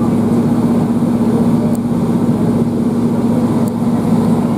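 Cabin sound of a Class 153 diesel railcar on the move: its underfloor Cummins diesel engine gives a steady drone over rumbling wheels and track.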